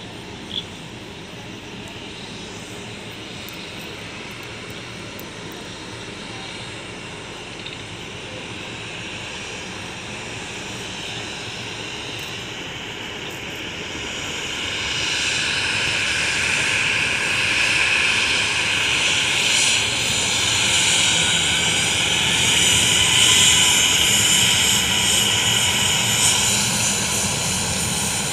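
Twin jet engines of an Air India Express Boeing 737 running at low power, then spooling up to takeoff thrust about halfway through. They grow much louder over a few seconds into a steady jet roar with a high whine as the aircraft starts its takeoff roll.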